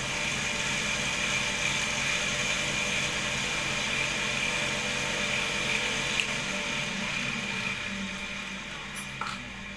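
Cotton candy machine's DC motor running with a steady whir and a thin high whine, then dying away over the last two seconds or so as the machine is switched off.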